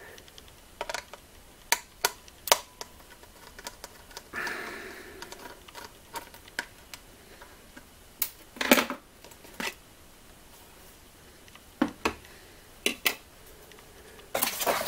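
Scattered sharp clicks and knocks of a KAIWEETS HT118A multimeter's plastic case and a screwdriver being handled while its back battery cover is taken off, with a short rubbing sound about four seconds in and a louder scrape at the very end.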